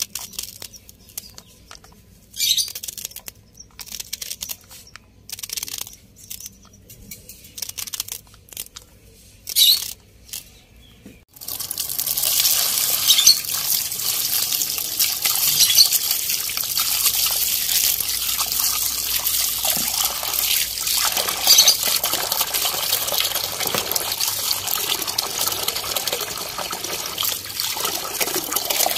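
A knife snipping fresh greens against the thumb in short, crisp, scattered cuts. About eleven seconds in, tap water starts running steadily, splashing into a plastic tub as white radishes are rubbed clean by hand.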